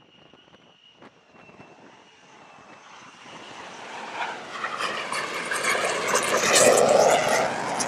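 F-35C's Pratt & Whitney F135 jet engine during an arrested landing on the carrier deck. A thin high whine at first grows into a loud roar from about three seconds in, loudest near the end, then cuts off abruptly.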